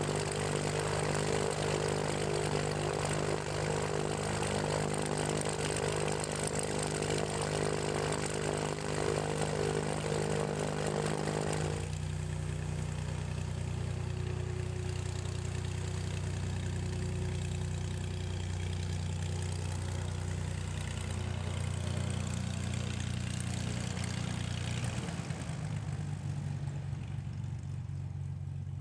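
A Cessna 210's six-cylinder Continental IO-550 engine and propeller run steadily at taxi power as the plane taxis away. The sound changes abruptly to a lower, thinner drone about twelve seconds in, and it grows fainter near the end.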